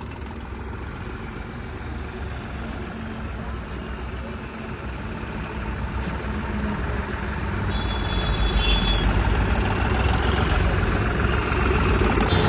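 Diesel engine of a modified tractor running as it is driven along the road, a steady low rumble that grows louder over the second half.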